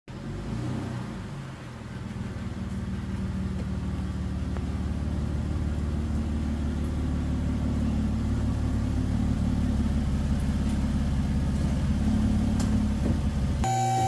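Jeep Wrangler JK's 3.8-litre V6 engine running as the Jeep drives in slowly, growing louder as it comes close. It cuts off abruptly near the end.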